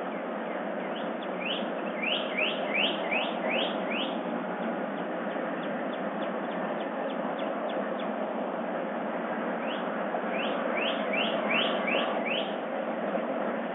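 A songbird singing in the dawn chorus: two phrases of quick rising notes, one about a second and a half in and another near ten seconds, with fainter calls between them, over a steady background hiss.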